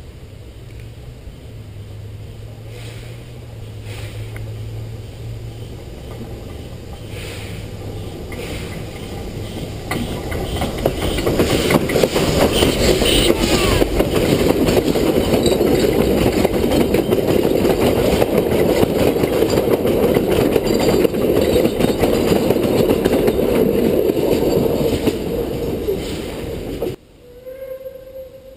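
Puffing Billy narrow-gauge steam train (2-6-2T locomotive 6A and its carriages and wagons) approaching a camera set between the rails. A low hum grows louder for about ten seconds, then loud wheel clatter and rumble run as the wagons roll directly overhead, and the sound cuts off suddenly near the end.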